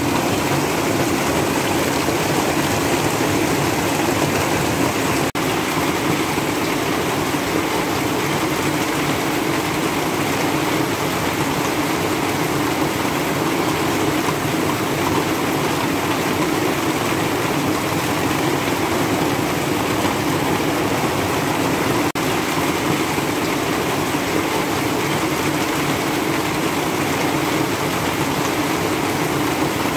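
Heavy rain falling steadily on a roof and the yard, with water streaming off the roof edge: a loud, even hiss.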